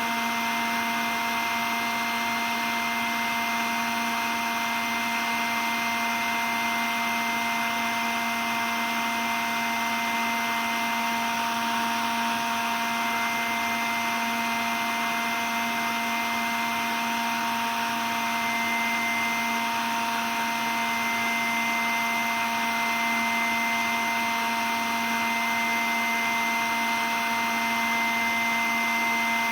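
Cordless stick vacuum cleaner running steadily: an even whooshing motor noise with a constant high whine, no change in speed.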